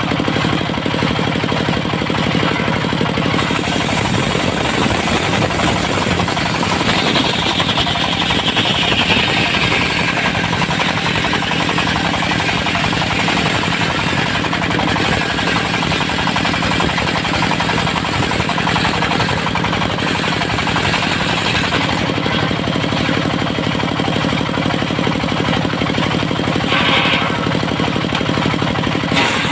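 Engine-driven circular sawmill running with a steady clatter while its blade rips through dry, tough teak. About seven seconds in, a high whine drops in pitch over a few seconds as the blade bites into the wood. A short high whine comes again near the end.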